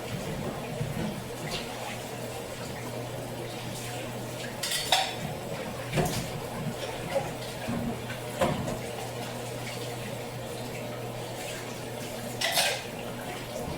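Dishes, pots and metal utensils clattering and clinking as they are handled while cleaning up in a kitchen, with a few louder clanks, over a steady low hum.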